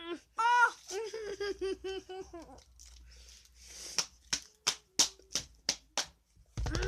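Wordless voice reactions to an intensely sour candy: a high, rapidly pulsing moan, then a run of about eight sharp smacks, roughly three a second, and a rising-and-falling cry near the end.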